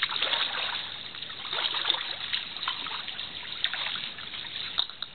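Pool water lapping and splashing lightly in an above-ground pool, with irregular small splashes and trickles.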